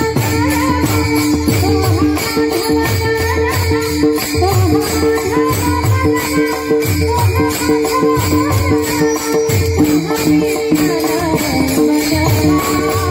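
Marathi Varkari devotional music: singing over a steady held drone, with a group of small brass hand cymbals (taal) clashing an even beat and a pakhawaj drum pulsing underneath.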